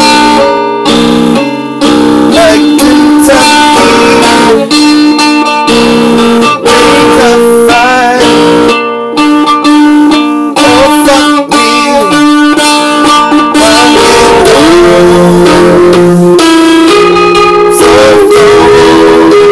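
Guitar music with held notes over chords, some notes bending in pitch.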